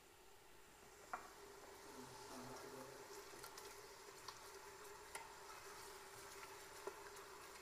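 Spices and tomato puree frying faintly in oil in a stainless steel stockpot, being stirred with a spoon, with a few sharp clicks of the spoon against the pot. This is the bhuna stage, where the spice paste is fried together.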